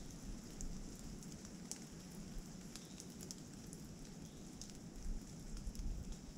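Light rain pattering, with scattered sharp drop ticks. A low wind rumble on the microphone builds from about five seconds in.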